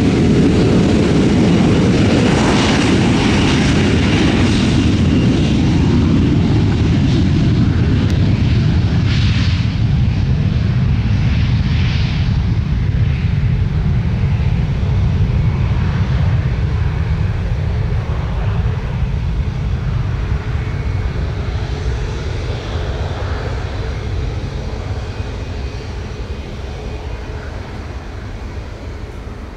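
Embraer E195-E2 jet airliner taking off, its two geared turbofan engines at take-off power. A loud, rumbling jet roar, strongest in roughly the first half, then slowly fading away.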